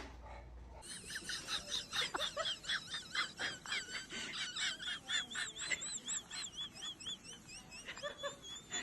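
An animal's high-pitched chirps repeated rapidly, a few a second, starting about a second in.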